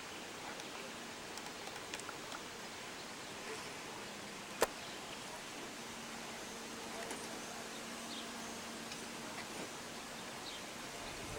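Faint steady background hiss with one sharp click about halfway through, and a faint low hum in the second half.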